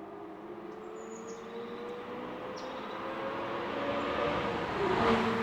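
Ferrari 360's 3.6-litre V8 engine note, rising slowly in pitch and growing steadily louder. Faint bird chirps about a second in and again past two and a half seconds.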